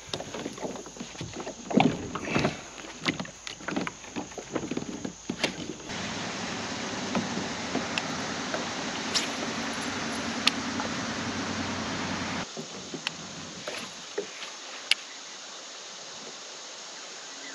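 Plastic Old Town pedal-drive kayak being launched off a rocky bank: a run of sharp knocks and scrapes of hull and gear for the first several seconds, then a steady rushing noise as it moves out on the lake, with a few light clicks near the end.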